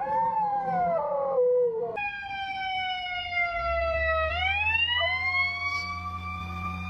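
A husky howls for the first couple of seconds. An emergency-vehicle siren then takes over, its wail falling slowly and then rising again, with a dog howling along with it from about five seconds in over a low rumble.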